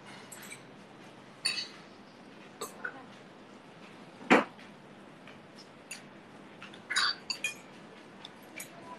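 Scattered clinks and knocks of dishes, glasses and cutlery being handled, some ringing briefly, with one louder knock about four seconds in.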